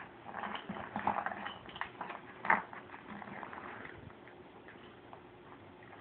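Golden retriever chewing and mouthing an orange rubber ball with holes in it: irregular clicks of teeth on rubber and wet mouth sounds. The sharpest click comes about two and a half seconds in, then it goes quieter.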